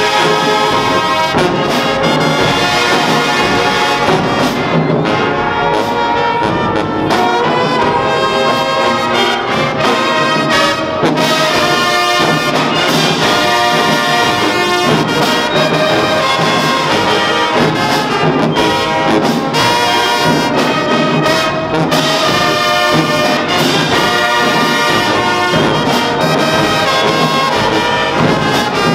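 A marching band's brass section, sousaphones, trombones and trumpets, playing a loud tune without a break.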